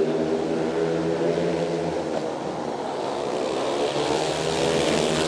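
A pack of five speedway motorcycles, single-cylinder 500 cc methanol-burning engines, running flat out off the start and into the first turn. The engine pitch shifts as they go, with a slight dip in loudness about halfway before it rises again.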